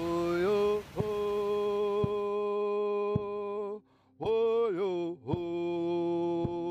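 A Haida song: a single voice chanting long held notes, sliding between pitches now and then, over a drum struck steadily about once a second.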